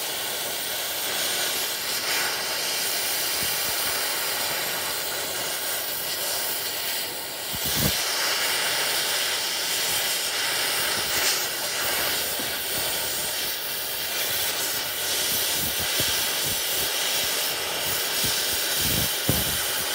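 Gas torch flame hissing steadily as it heats a bolt red-hot in a bolt hole of a dirt pan's cutter blade, to burn the bolt out. A few brief low thumps come in, one about eight seconds in and more near the end.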